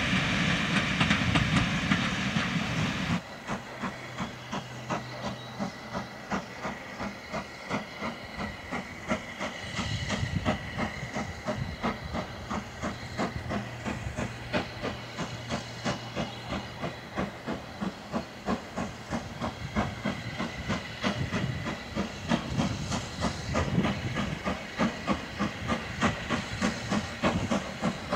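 Steam locomotive working hard as it approaches, its exhaust giving a steady rhythm of sharp chuffs that grows louder near the end. For the first three seconds a louder, steady train rumble is heard, and it cuts off suddenly.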